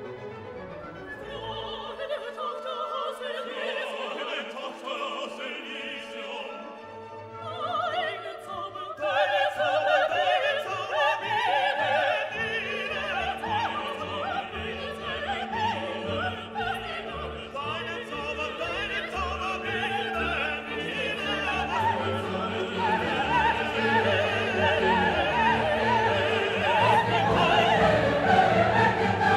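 Background music: operatic classical singing over an orchestra, the voice wavering in pitch, swelling louder about nine seconds in.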